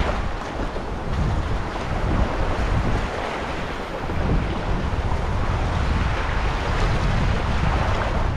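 Wind buffeting the microphone in uneven gusts over the rushing wash of waves along the shore.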